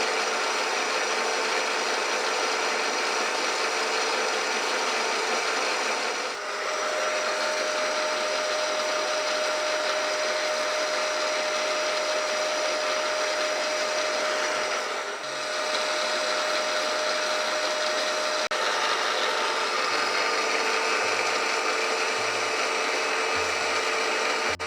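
Milling machine running steadily with a mechanical hum and several whining tones. About six seconds in one whine steps up in pitch, and it drops back around eighteen seconds; the level dips briefly twice.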